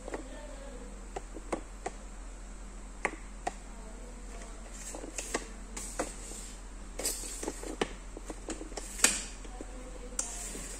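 Room tone with a steady low hum, broken by scattered, irregular light clicks and taps; the sharpest comes about nine seconds in.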